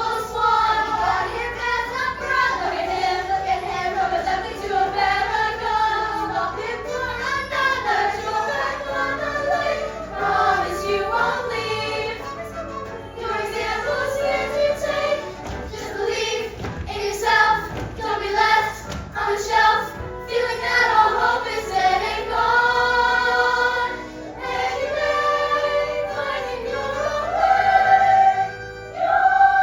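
A chorus of voices singing together in a musical number, with some long held notes.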